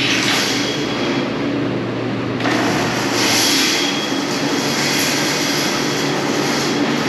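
Loud, steady machinery running with a low hum, with a stronger surge of hiss that comes in about two and a half seconds in.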